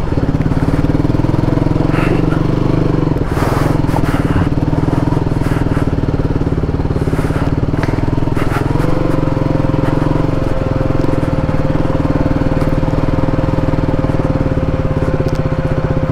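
KTM motorcycle engine running steadily while riding over a rough gravel track, with loose stones crunching and clattering under the tyres every so often.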